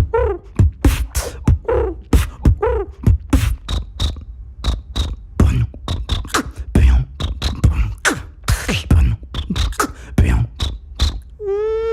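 Beatboxing: a fast beat of mouth-made kick, snare and hi-hat sounds, with warbling squawk-like vocal calls woven in over the first three seconds. Near the end, a steady hummed buzz begins.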